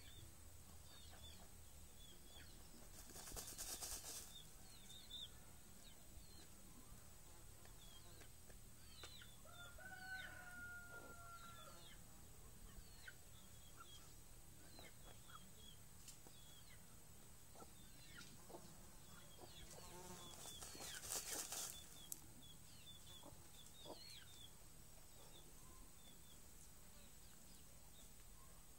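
A hen dust-bathing in dry soil: two bursts of rustling and wing flapping as she flings dirt through her feathers, about three seconds in and again about twenty seconds in. Between them a chicken gives one short drawn-out call, with faint chirping throughout.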